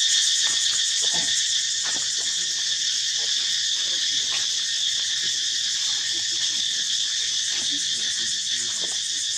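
Steady, high-pitched chorus of insects droning without a break, with a few faint brief sounds beneath it.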